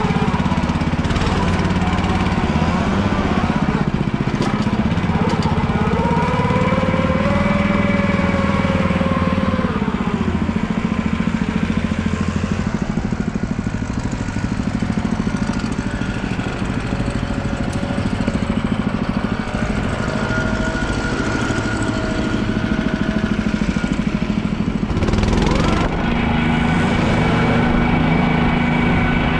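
Engine of a Permagreen Triumph ride-on spreader-sprayer running steadily as the machine is driven, with a fainter whine that rises and falls in pitch several times.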